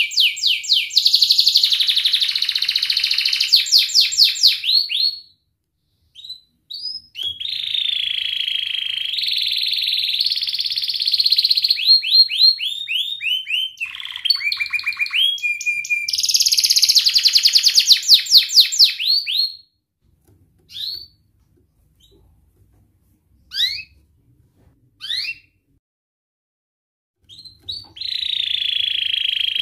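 Domestic canary singing, long phrases of fast repeated notes and rolling trills. Around two-thirds of the way in the song stops for several seconds, broken only by a few short chirps, then starts again near the end.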